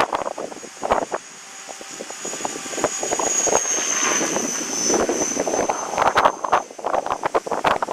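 Align T-Rex 500 RC helicopter flying, its high whine dipping slightly in pitch midway. Gusts of wind buffet the microphone at the start and again near the end.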